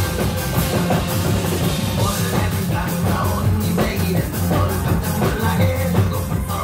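A drum kit and a set of traditional Korean barrel drums (buk) played together, struck fast with sticks, over loud rock-style music with a steady beat.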